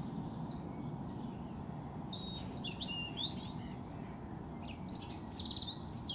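Songbirds chirping and singing: many quick, high notes and short rising and falling whistles, over a steady low background hum.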